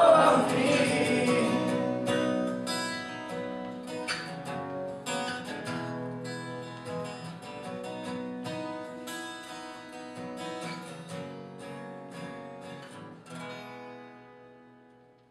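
Acoustic guitar strumming chords, with a sung line ending about a second in; the guitar plays on, growing steadily softer, and fades out near the end.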